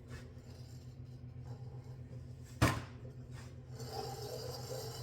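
A single sharp metal clank of a tool about two and a half seconds in, over a faint steady hum, then light clinking of tools being handled near the end.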